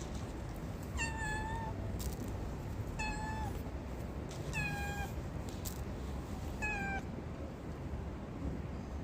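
A kitten meowing four times: short, high calls about two seconds apart, each sliding slightly down in pitch.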